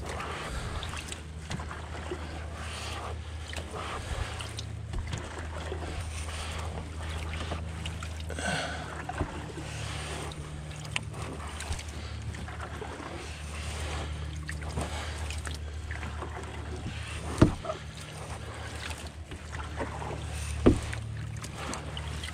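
Water moving around a canoe on a fast, high river, over a steady low rumble. Late on, two sharp knocks come about three seconds apart.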